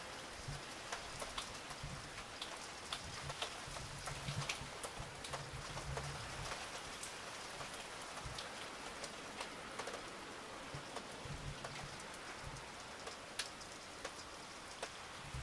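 Steady rain falling, with many individual drops ticking sharply close to the microphone.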